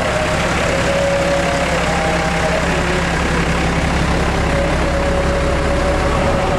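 Tour bus diesel engine running steadily, with faint held notes from telolet musical horns now and then.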